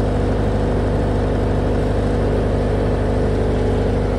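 Doosan 30 kVA diesel generator running steadily under load from an inductive load bank, an even, unchanging engine note.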